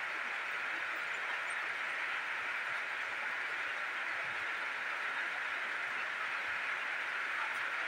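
A steady, even hiss that holds unchanged, with no rhythm and no separate events.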